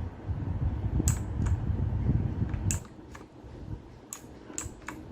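Gigaware K880 mechanical keyboard keys clicking, about seven separate, unevenly spaced key presses, as keys are pressed to change the backlight effect. A low rumble runs under the first three seconds and then drops away.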